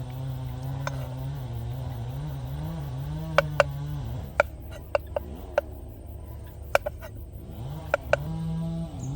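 A low steady hum that wavers slightly in pitch, fading out about four seconds in and returning near the end. Around ten sharp knocks fall between about three and eight seconds in, some in quick pairs.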